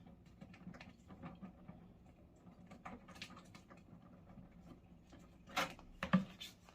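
Scattered small clicks and rustles of objects being handled, with two louder knocks about five and a half and six seconds in.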